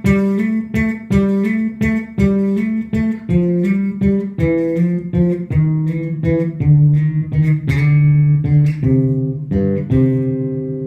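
Electric bass, a Lakland 55-02, played solo: a repeated phrase of plucked notes with hammer-ons from the 12th to the 14th fret, moving into longer, lower notes left ringing near the end.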